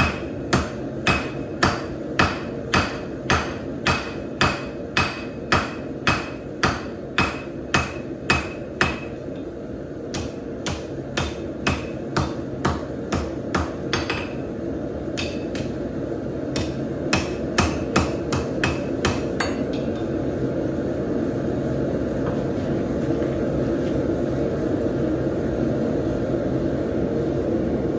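Hand hammer forging a piece of truck coil-spring steel on an anvil: sharp ringing blows about two a second for the first nine seconds, then slower, uneven blows that stop about 19 seconds in. A steady rushing roar runs under the blows and is left alone at the end.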